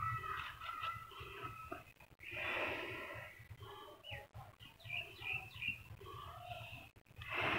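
Small birds chirping in short, repeated high notes, with a brief breathy rush about two and a half seconds in.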